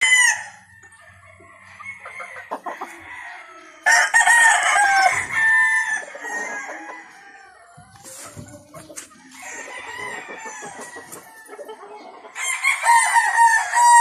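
Gamecock roosters crowing: two long crows, the first about four seconds in and the second near the end, with quieter clucking between them.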